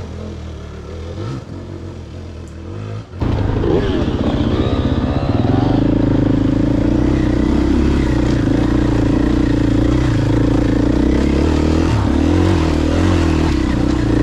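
Dirt bike's 450 four-stroke single-cylinder engine. It is quieter and more distant at first, then about three seconds in it suddenly becomes loud and close, heard from the rider's helmet camera. It revs up and down briefly, then runs steadily while riding the trail.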